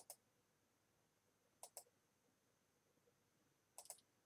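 Faint computer mouse clicks, each a quick press-and-release pair, three times over near silence: slides being advanced.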